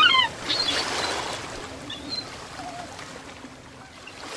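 Water ambience, a soft rushing wash, with a few short chirping bird calls in the first half second. It then fades gradually.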